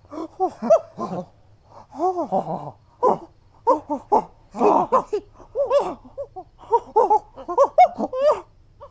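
Several voices making monkey noises: short hoots and chatters whose pitch rises and falls, coming thick and fast and often overlapping.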